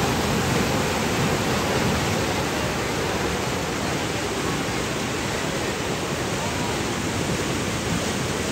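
Fast-flowing, silt-laden water of the Sutlej River rushing and churning in standing waves. A steady, unbroken rushing noise.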